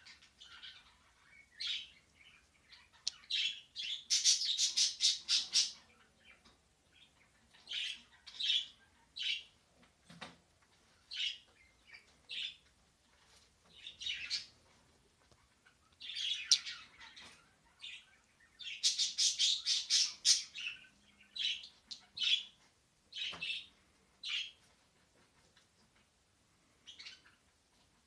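A bird chirping and squawking in short high calls, broken twice by long runs of fast chirping.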